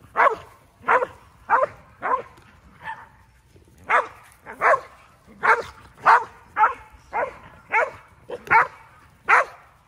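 A dog barking over and over, about one bark every two-thirds of a second, some fourteen barks in all, with a short break about three seconds in.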